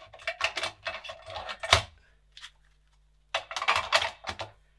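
Plastic 3.5-inch floppy disks clicking and clattering against each other and the metal magazine as they are loaded by hand into a floppy autoloader's stack. There are two bursts of clatter with a short pause between them.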